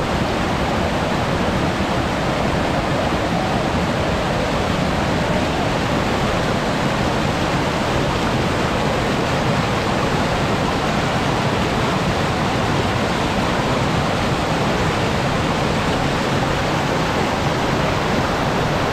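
Fast-flowing mountain stream rushing over rocks, a loud, steady wash of water noise.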